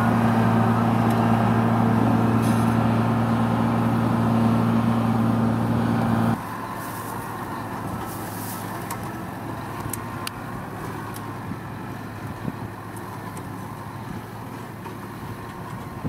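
Tractor diesel engine running at steady high revs under load, hauling a loaded trailer through deep mud. About six seconds in the sound drops suddenly to a quieter, rougher engine with a few scattered clicks.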